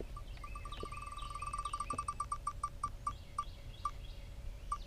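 Smartphone spin-the-wheel app ticking through the phone's speaker as the wheel turns. The ticks come fast at first and slow steadily until the wheel stops near the end. Birds chirp faintly in the background.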